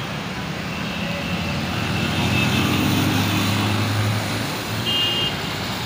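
A motor vehicle's engine passing on a rain-wet road, growing louder and then fading, over a steady hiss of rain and wet tyres. A brief high tone sounds about five seconds in.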